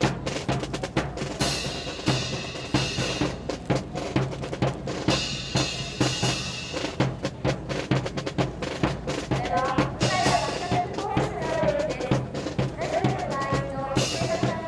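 Drum-heavy music with a steady, fast beat of bass drum and snare; a melody line comes in about ten seconds in.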